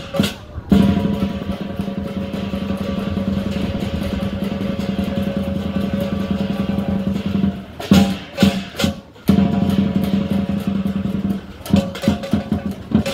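Lion-dance percussion: a steady drum roll with loud cymbal crashes about eight seconds in and again near the end.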